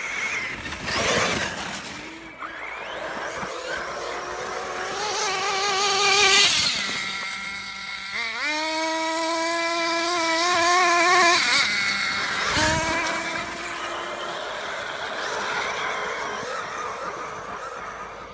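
Radio-controlled off-road car driving hard on dirt. Its small motor revs up and down in several pulls: the pitch climbs and wavers, drops away, and about eight seconds in sweeps up to a high, held note before cutting off.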